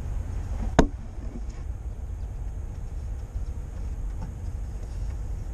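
A single sharp plastic knock about a second in as the new brake fluid reservoir is set onto the master cylinder, over a steady low rumble.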